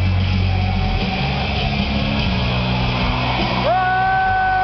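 Wrestler's entrance music playing loud over an arena's sound system, recorded from the crowd, with heavy bass. Near the end a loud, steady horn-like tone rises in and holds.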